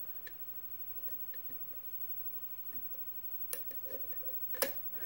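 Lockpick clicking against the pins of a pin tumbler lock cylinder under tension: faint ticks, then two sharper clicks about three and a half and four and a half seconds in, as the core turns into a deep false set.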